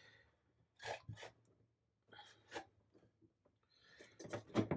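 Faint handling noises of hands fitting parts in a jet board's engine bay: a few short clicks and rustles, coming closer together near the end.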